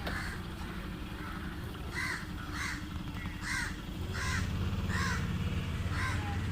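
A crow cawing repeatedly, about six short, harsh caws roughly three-quarters of a second apart, starting about two seconds in, over a low steady hum.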